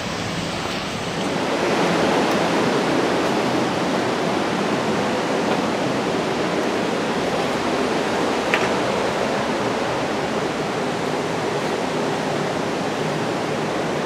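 Steady rush of flowing water, swelling about a second and a half in and then holding even, with a single light click about eight and a half seconds in.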